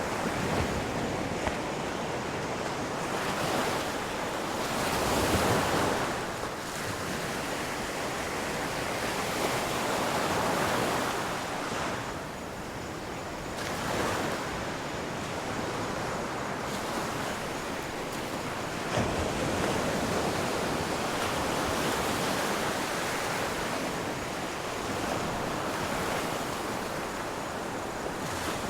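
Ocean surf: waves crashing on a shore, a steady rush of water that swells and eases every few seconds.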